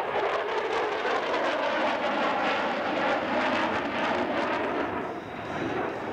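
B-1B Lancer bomber's four turbofan engines: steady jet noise as it flies past, dipping briefly about five seconds in.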